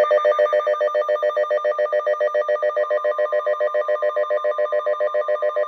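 A weather alert radio's alarm beeping rapidly, about eight beeps a second, set off by a severe thunderstorm warning. A faint steady warning tone from the broadcast sounds beneath it from about halfway in.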